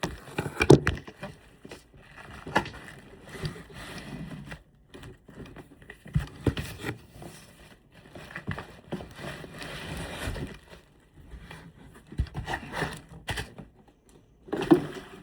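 Packaging crinkling and rustling in hand, with scattered knocks and taps from handling, as a pair of boots is unboxed.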